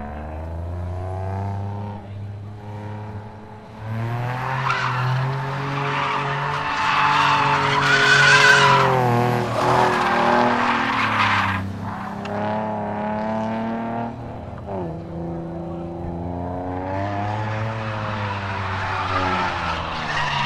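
Nissan 350Z's V6 engine revving up and down at high rpm through a drift, with tyre squeal swelling about four seconds in, loudest near the middle and again near the end.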